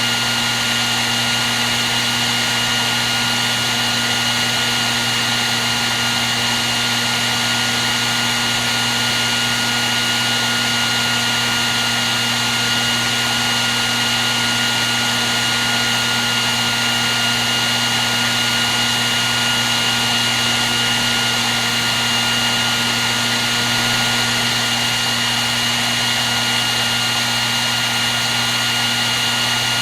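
Hair dryer running steadily without a break: an even rush of air with a steady high whine and a low hum from the motor.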